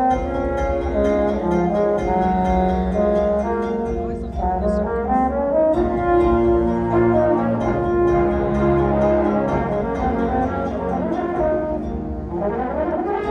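Indoor winds ensemble of brass and woodwinds playing held, shifting chords over a steady percussion beat, with a rising run of notes near the end.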